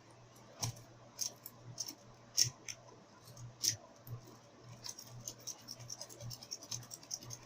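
Lock pick working the pins of a pin-tumbler lock under tension: irregular small metallic clicks and light scraping, a few sharper clicks in the first half and a quicker run of light ticks in the second half, over a faint steady low hum.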